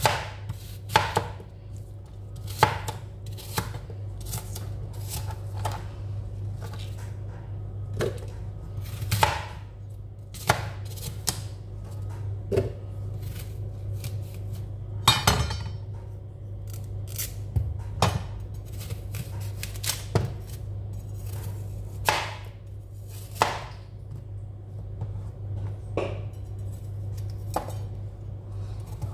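Kitchen knife slicing a green apple on a cutting board: irregular crunches and knocks of the blade reaching the board, one every second or two.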